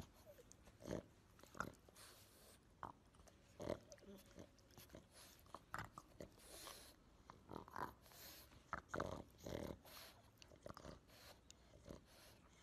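A pug's short, irregular snorts and grunts, over a dozen in a row, as it mouths and paws at a person's hand.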